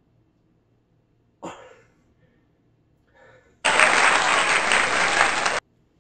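A short, sharp puff of breath about one and a half seconds in, and a fainter one near the middle. Then a loud burst of clapping applause, about two seconds long, starts and cuts off abruptly like a dropped-in sound effect.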